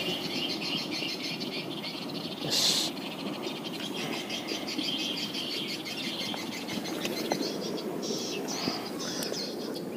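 Birds chirping and insects calling in a fast, even pulsing, with a short louder burst about two and a half seconds in.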